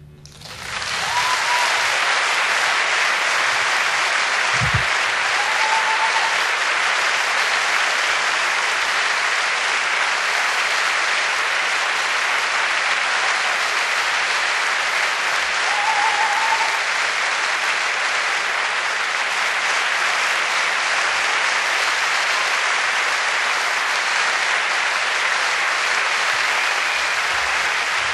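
Large theatre audience applauding, swelling up over the first second or two and then holding steady and loud, with a few short high calls from the crowd above it.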